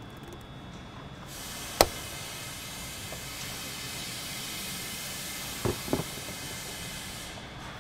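Sharp plastic clicks of a sensor connector and quick-connect lines being unplugged from a car's air intake tube: one click about two seconds in, then a quick double click near six seconds. A steady hiss runs underneath.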